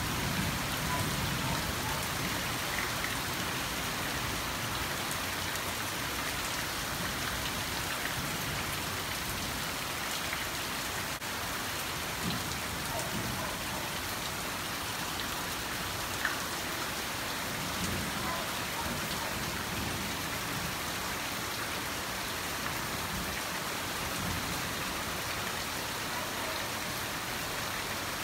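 Steady rain falling on garden foliage, lawn and potted plants: an even hiss with a few sharper drop taps.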